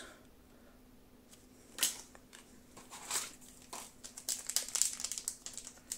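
Foil booster pack wrapper crinkling as it is handled: a couple of separate rustles, then a busy run of quick crinkles over the last couple of seconds.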